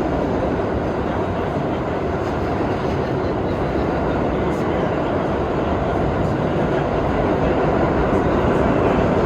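R32 subway train running at speed between stations: a steady rumble of wheels on rail, growing a little louder near the end.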